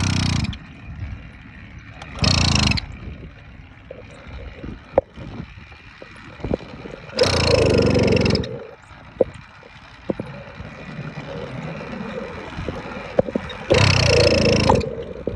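Small engine on a motorized bicycle being turned over while riding, making four short noisy bursts without catching: it will not start after stalling from a long idle warm-up.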